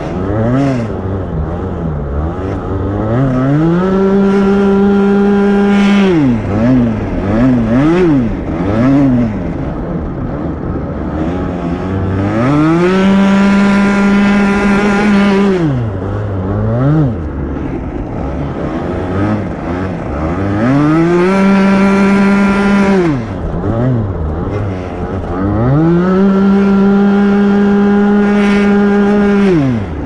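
Rotax Max 125 cc single-cylinder two-stroke kart engine heard onboard, revving up hard and holding at top revs on the straights, then dropping off sharply when the throttle is lifted, four times. Between the straights the revs rise and fall unevenly through the corners.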